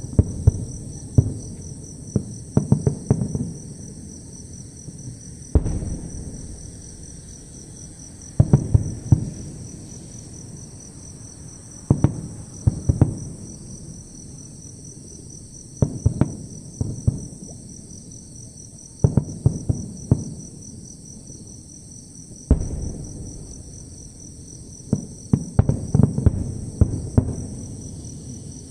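Aerial fireworks shells bursting at a distance, in clusters of booms and crackles every few seconds. A steady high chirring of insects runs underneath.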